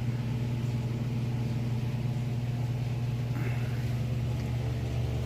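Steady low hum of running mechanical equipment, a constant motor drone holding one pitch throughout.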